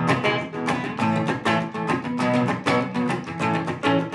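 Gibson Les Paul electric guitar playing quick, repeated chord strums through a Marshall JCM800 Studio valve head on its high input setting at low volume, heard through a lapel mic rather than a miked cabinet.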